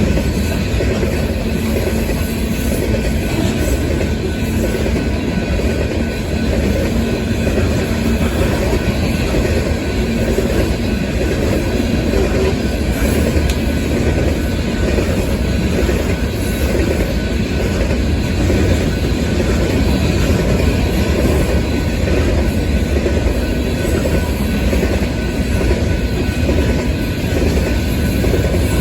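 Freight train of coal hopper cars rolling past at speed: a steady rumble with wheel clatter on the rail joints.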